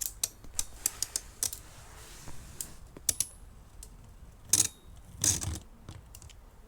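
Light plastic clicks and taps from Beyblade tops and parts being handled, irregular and scattered, with two louder knocks about two-thirds of the way in.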